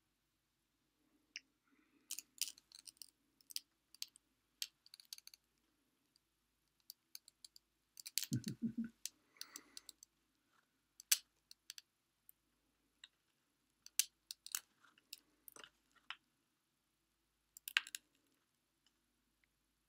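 Plastic drinking-water bottle handled close to the microphone: scattered, irregular crinkling clicks and crackles, with a heavier bump of handling noise about eight seconds in.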